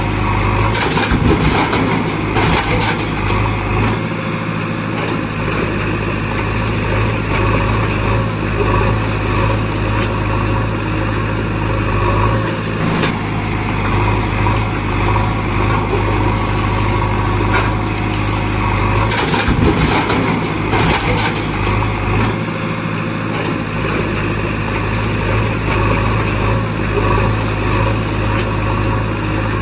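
Heavy engine running steadily at idle, a continuous low hum with brief dips in its lowest rumble a few seconds in and again about three-quarters through. A few knocks or clicks sound over it.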